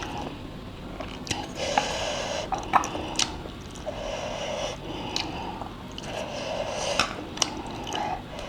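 A person eating instant ramen noodles close to the microphone: wet chewing and slurping in short repeated spells, with sharp clicks and smacks in between.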